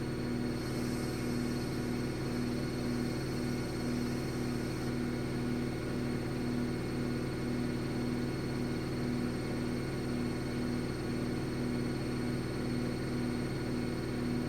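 Atlant 70U1214 washing machine running steadily on its spin, a constant whir with a low hum that pulses evenly about one and a half times a second.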